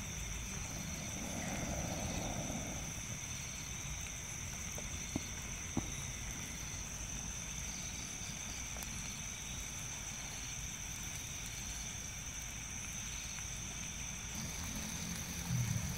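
Steady chorus of forest insects, a shrill high drone that does not break, over a low background hum, with two faint clicks about five and six seconds in.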